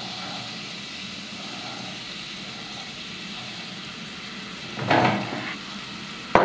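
Butter, carrots and green peas sizzling in a pan on a gas stove as the peas are tipped in from a plate, with a louder burst of sizzle about five seconds in and a sharp clink near the end.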